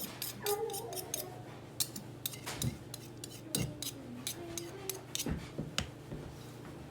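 A spoon stirring and knocking in a plastic cup of baking soda, dish soap and food coloring, making irregular clicks and scrapes.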